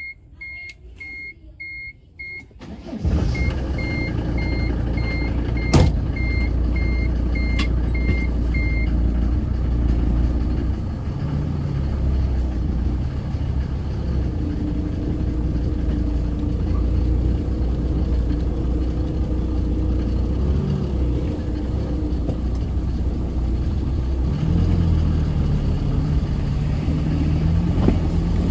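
A car's engine starts about three seconds in while a short warning beep repeats about twice a second, then the car pulls away with its engine running steadily. The beeping stops after several seconds, there is one sharp click, and the engine note deepens near the end.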